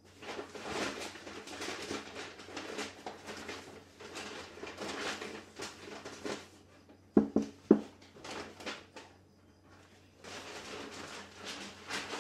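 Rustling and scraping of things being handled in a small room, then three sharp knocks in quick succession about seven seconds in, followed by a few lighter clicks and more rustling near the end.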